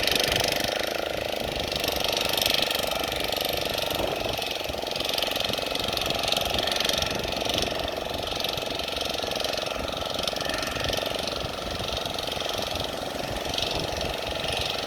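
An engine running steadily with a rapid mechanical clatter.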